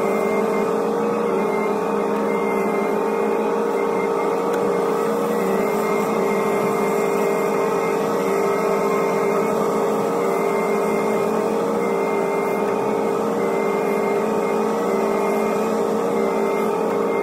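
Hitachi ZX125W wheeled excavator's engine and hydraulics running steadily as heard from inside its cab: a constant hum with a mid-pitched whine that wavers slightly as the bucket grades crushed stone.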